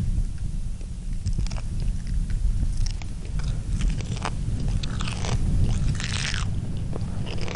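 A man chewing a raw scorpion, its shell crunching between his teeth in irregular bursts, the biggest crunch about six seconds in, over a steady low rumble of wind on the microphone.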